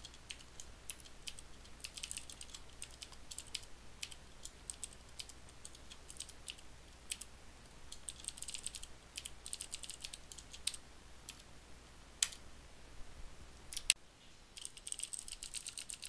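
Computer keyboard typing in irregular bursts of keystrokes, with two louder single clicks about three quarters of the way through.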